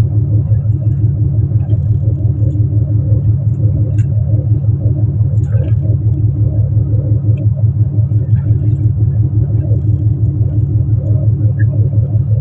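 Fishing boat's inboard engine running steadily, a loud low throbbing drone, with a couple of faint clicks midway.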